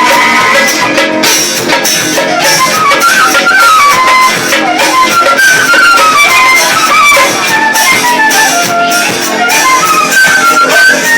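A pife (Northeastern Brazilian bamboo fife) playing a quick, running melody that steps up and down, over steady hand percussion.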